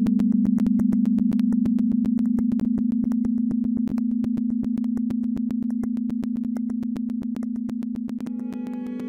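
A steady low electronic tone, like a sine wave, with a rapid train of sharp clicks over it, several a second, growing slowly quieter. Near the end, pitched string notes come in over the tone.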